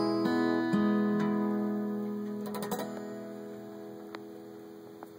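Acoustic guitar playing the last couple of picked notes of a song, then a final chord left ringing and slowly fading away. A few faint clicks come about halfway through.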